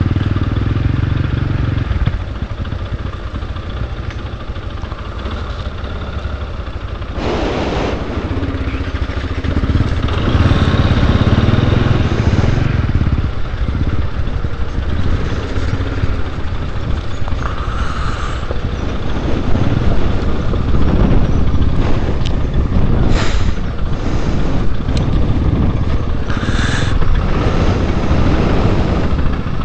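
Quad bike engine running slowly along a rough, rutted dirt track, with occasional knocks and rattles as it goes over bumps.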